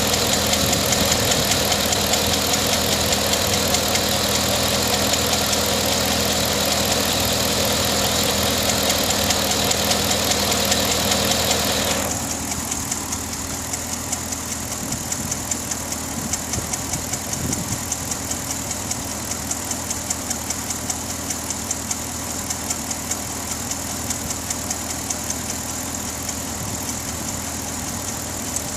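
2009 Pontiac G8 GT's 6.0-litre V8 idling with a rapid, steady ticking, which the owner suspects is lifter tick. About twelve seconds in, a loud rushing noise over the engine cuts off suddenly, leaving the idle and the tick quieter.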